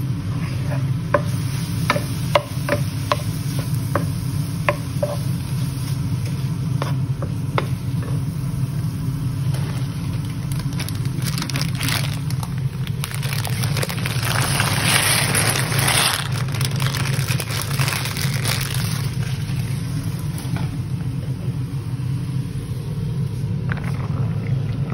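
Diced chicken searing without oil in a nonstick frying pan, sizzling, with a wooden spatula scraping and tapping the pan several times in the first few seconds; the sizzling grows louder in the middle. A steady low hum runs underneath.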